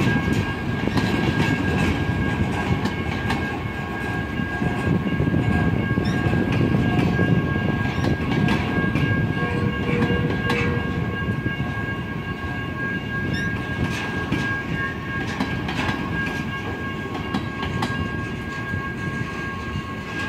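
Freight cars of a long train rolling past: a steady rumble of wheels on rail with scattered clicks and clanks from wheels over rail joints, and a steady high-pitched tone running over it.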